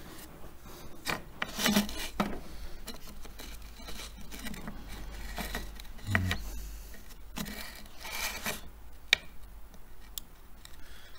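Scraping, rubbing and scattered clicks as a hot-staple plastic welder is worked into a plastic bracket, over a low steady hum. The sharpest click comes near the end.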